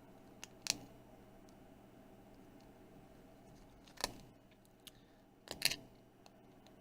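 Three brief, sharp clicks from hands handling small tablet parts at a workbench: one near the start, one about four seconds in, and a double click near the end.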